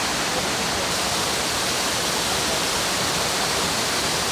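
Waterfall pouring down, a steady, even rush of falling water.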